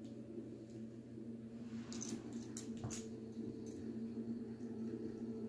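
A dog scrambling off a person's lap and walking away across a rug, with a few light sharp clicks and rustles about two to three seconds in, over a steady low hum.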